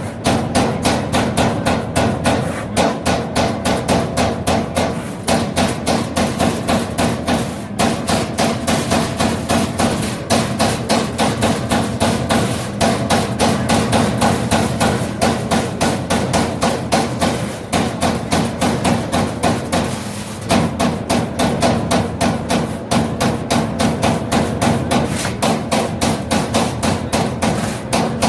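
Hydraulic CNC turret punch press punching sheet metal: a fast, even series of sharp metallic hits, a few per second, over a steady machine hum, with a few brief pauses in the rhythm.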